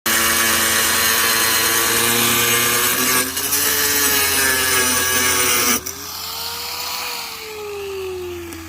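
Power tool motor running loud and steady, then switched off about six seconds in, its whine falling slowly in pitch as it spins down.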